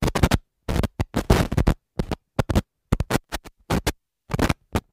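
Glitchy channel-intro sound effect: a dozen or more short, choppy snatches of scratchy noise and music, like a record being scratched, each cut off abruptly by dead silence.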